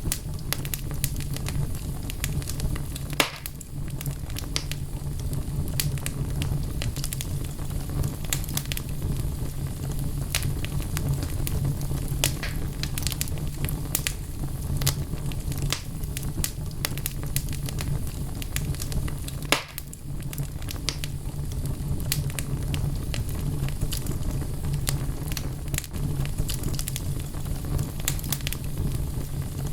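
Wood fire burning in a fireplace: logs crackling with many small irregular snaps over a steady low rumble, and two louder pops, about 3 seconds in and again near the middle.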